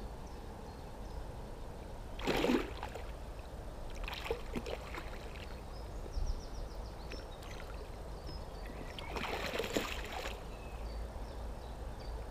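A small wels catfish splashing and thrashing at the water's surface as it is played on a rod beside a float tube: a few separate splashes, the strongest about two seconds in and again near the end, over a steady low rumble of wind and water.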